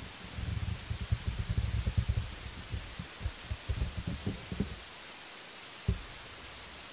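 Irregular low rumbling thumps on the microphone over a steady hiss: bursts for the first four and a half seconds, then one more thump near the end.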